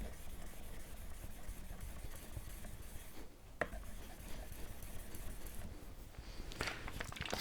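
Flat back of a Marples chisel rubbed back and forth on a wet 4000-grit Japanese water stone, polishing the back: a faint, steady scraping. It pauses briefly a little past three seconds, ending in a light click.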